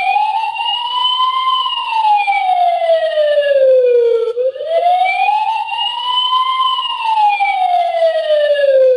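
Siren sound effect played through a talking book toy's small speaker as a 'whose sound is this?' quiz clip: a slow wail that rises and falls twice, each cycle about five seconds long.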